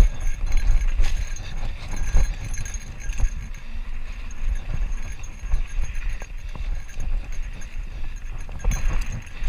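Mountain bike rattling and clattering as it rolls over a rough dirt trail, with irregular knocks and clicks from the bike, over wind rumbling on the camera microphone.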